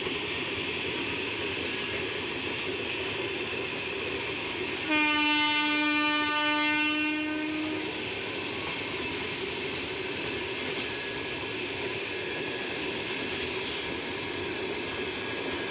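Indian Railways express train's sleeper coaches rolling past, a steady rush of wheels on rail. About five seconds in the locomotive horn sounds one long blast of about three seconds.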